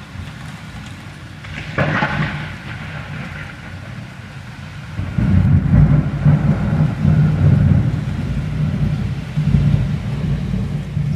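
Thunder during a heavy storm: a sharp crackle about two seconds in, then a long, heavy low rumble from about five seconds in, over steady rain.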